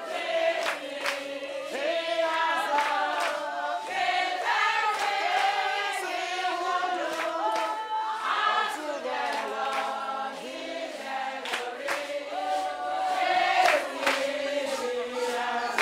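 A group of women singing together in chorus, with rhythmic hand clapping.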